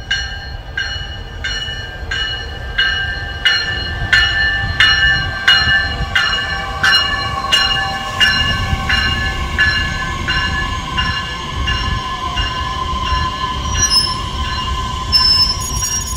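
Metra Electric Highliner electric multiple-unit train rolling in alongside the platform, its wheels rumbling over the track, with a warning bell ringing about once every 0.7 s and fading out near the end. A steady wheel whine grows louder about halfway through, and thin high wheel squeals come in near the end.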